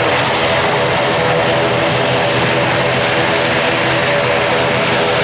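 An ATR twin-turboprop airliner's engines and propellers running loud and steady as it taxis: a constant roar with a steady hum of propeller tones that does not rise or fall.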